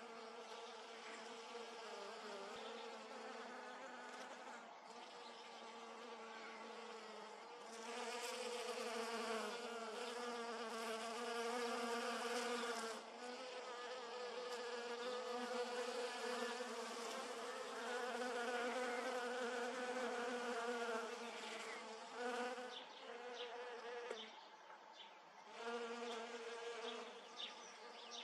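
Honeybees buzzing: a steady wavering hum that grows louder about eight seconds in and thins out for a few seconds near the end.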